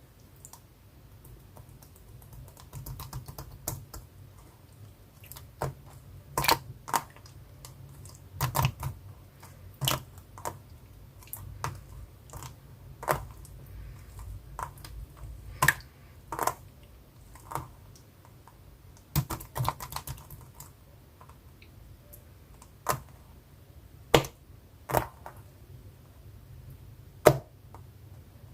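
Sharp clicks and snaps at irregular intervals, sometimes in quick pairs, over a faint low hum.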